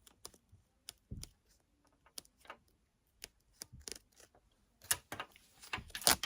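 Stitches being cut and ripped out of a hoodie's zipper seam: irregular sharp little clicks and snaps of thread giving way, with a quicker cluster about five seconds in.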